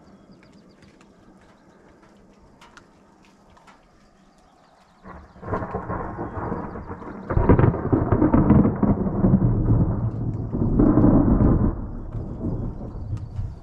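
Thunder from an evening thunderstorm. A long rumble starts about five seconds in, grows much louder a couple of seconds later and rolls on in waves, then eases off near the end.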